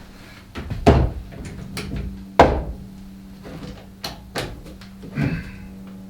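Knocks and clicks of handling power tools and hardware: two louder thumps about one and two and a half seconds in, with lighter clicks between and after them. No driver is running.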